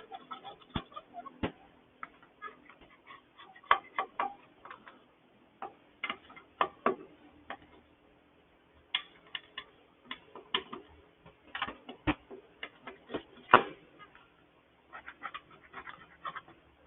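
Hand scraper scraping old gasket material off the aluminum surface of a Honda GCV160 engine: short, irregular scrapes and clicks in quick clusters with brief pauses between them.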